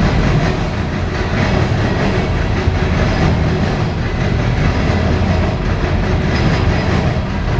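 Cars of a CSX coal train rolling past, a steady loud rumble of steel wheels on the rails.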